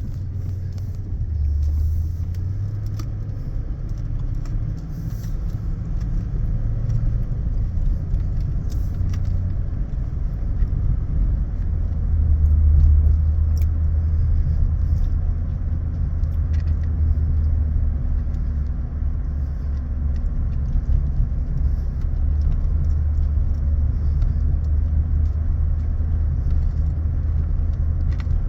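Steady low rumble of road vehicles running, swelling slightly about halfway through.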